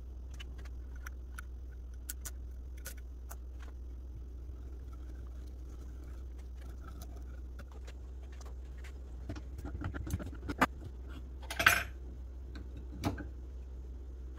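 Scattered light metal clicks and clinks from hands and pliers working a looped clock mainspring on a homemade mainspring winder, with a louder clatter near the end. A steady low hum runs underneath.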